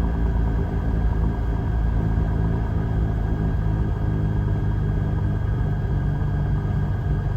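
Piper Lance's six-cylinder Lycoming engine running steadily on the ground.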